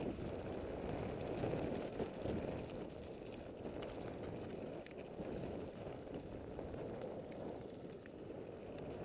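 Steady wind rush on the microphone of a camera moving fast along a dirt trail, with faint crunching and a few small rattles from the ride.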